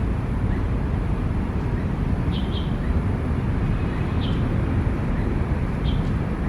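Steady low outdoor rumble, with a bird giving short high chirps four times, two of them close together just past two seconds in.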